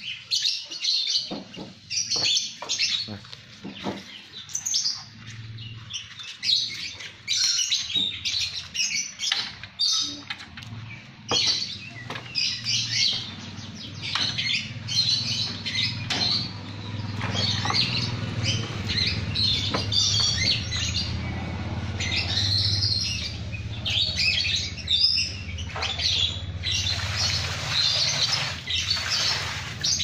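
Flock of lovebirds chirping and chattering continuously in short, rapid high calls, with a low steady hum underneath from about halfway through.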